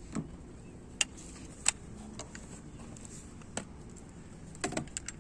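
A few scattered light clicks and knocks from tools being handled, over a faint steady background.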